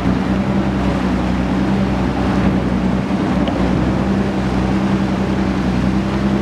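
Inboard engine of a wooden motor launch running steadily under way, a constant hum heard from on board, with water and wind noise over it.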